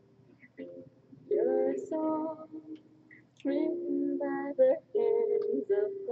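A woman singing a melody in short phrases of held notes, with brief pauses between them.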